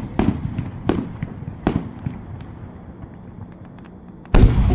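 Large aerial firework shells going off: four sharp reports in the first two seconds, then a few faint pops, then a much louder heavy boom near the end with a long rolling echo.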